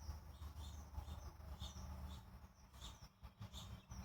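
Small birds chirping in the background: short high chirps about two a second, over a faint low rumble.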